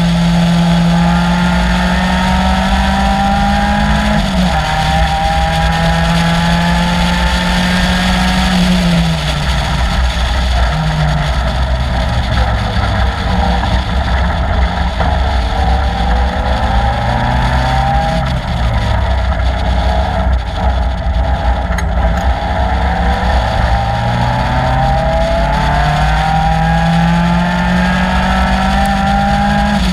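Caterham Seven's 2.3-litre Ford Duratec four-cylinder engine at racing revs. The revs climb and drop through the gears: an upshift about four seconds in, the revs falling away and varying through a slower stretch in the middle, then building again to another upshift at the end.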